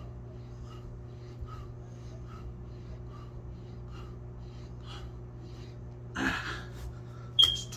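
A man breathing hard in short quick breaths, about two a second, while doing push-ups, over a steady low hum. About six seconds in comes a louder, heavy exhale as the set ends, followed near the end by a sharp click.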